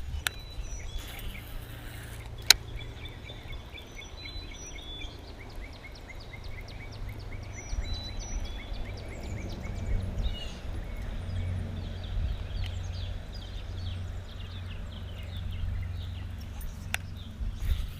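Birds chirping in rapid repeated trills over a steady low rumble, with a few single sharp clicks, the loudest about two and a half seconds in.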